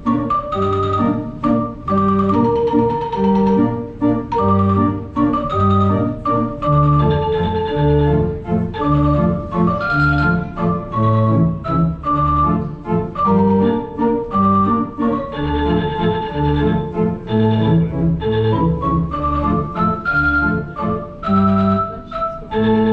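Theatre pipe organ played live: a melody over held chords and a steady run of low bass notes.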